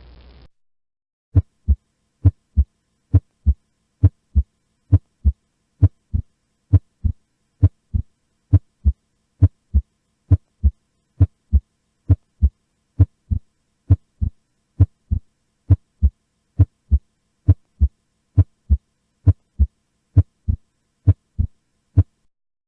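Heart sounds from an auscultation recording: paired lub-dub beats, the two sounds of each beat about a third of a second apart, repeating steadily at roughly 70 beats a minute. They start about a second and a half in, with clear pauses between beats.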